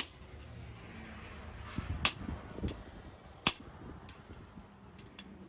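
A few sharp, irregularly spaced knocks of a hammer on steel: one at the start, two loud ones about two and three and a half seconds in, and a couple of faint taps near the end.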